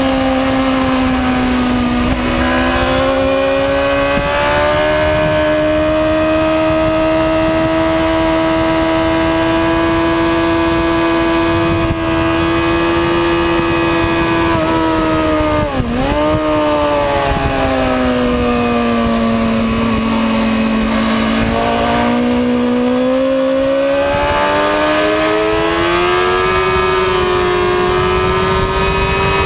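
Motorcycle engine running hard at high revs on a racetrack, with wind rush. About halfway through the pitch drops sharply and snaps back up, like a quick gear change. Later it falls away slowly and climbs again as the bike slows for a corner and accelerates out.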